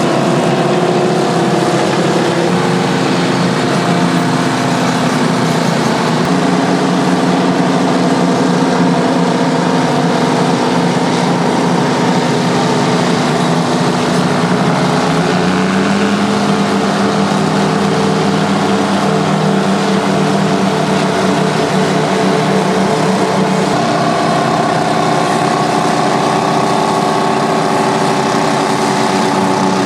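Euclid TC-12 crawler bulldozer's twin GM 6-71 two-stroke diesel engines running hard while the machine works. The engine note rises in pitch about halfway through and shifts again a little after that.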